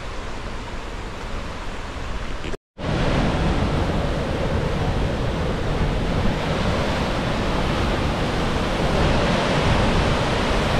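Rushing whitewater of St. Mary Falls, a steady wash of water noise. Just under three seconds in, a brief break of silence is followed by a louder, closer sound of the falls pouring into the rock gorge.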